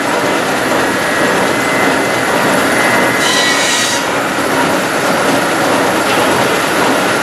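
1903 Avery 30 HP stationary steam engine running steadily with its flywheel and belt drive turning, and a short hiss of steam about three seconds in.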